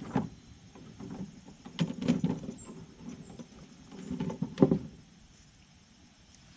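Knocks, thumps and rattles of someone moving about and handling fishing gear in a small boat: a clump of knocks about two seconds in and another around four to five seconds in, the loudest thump near the end of that second clump.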